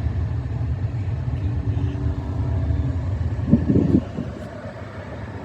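Steady low vehicle rumble heard from inside a car, with a short higher-pitched sound about three and a half seconds in, after which the rumble grows quieter.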